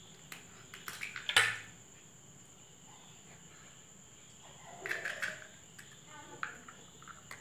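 An egg tapped and cracked on the rim of a stainless steel bowl: a few sharp clicks, the loudest about a second and a half in, followed by softer knocks and clatter around five seconds in. A steady high-pitched insect-like tone runs underneath.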